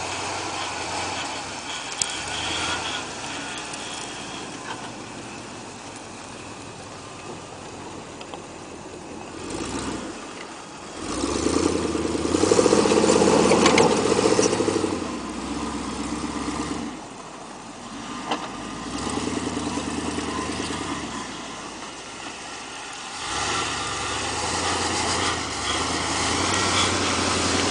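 1977 Ford F-150 4x4's engine revving up and easing off again and again as the truck bogs through deep snow. The longest and loudest rev comes near the middle.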